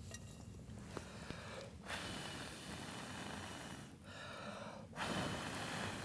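A person blowing hard on campfire coals: two long rushes of breath, the second a little louder and starting about a second after the first ends.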